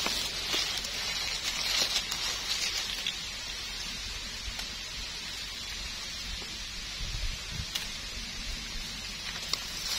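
Dry leaf litter rustling and crackling, with scattered small crackles and clicks. It is busiest in the first few seconds and then settles to a fainter, steady rustle.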